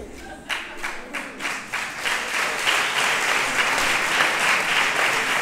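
Theatre audience applauding: scattered claps at first that build to steady full applause within about two seconds.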